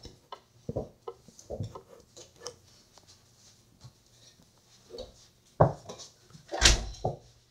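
Scattered thumps and knocks from one-on-one play at an over-the-door mini basketball hoop in a small room, with the loudest thump near the end.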